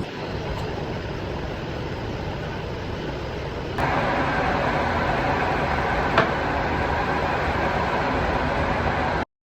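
Surface planer running with a steady mechanical noise that gets louder and brighter about four seconds in. A single sharp knock comes a couple of seconds later, and the sound cuts off suddenly near the end.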